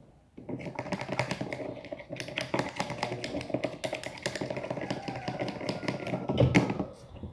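Rapid, irregular clicking and tapping of a utensil against a container as a soapy liquid is stirred, with a louder knock near the end.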